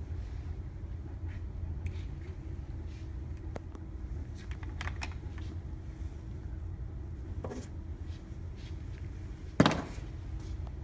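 Small clicks and taps of metal tweezers and a plastic tray being handled, over a steady low hum. One louder knock near the end.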